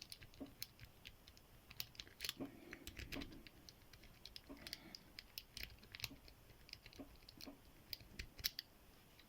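Faint, irregular small clicks and taps: lock picks and small padlocks being handled and worked.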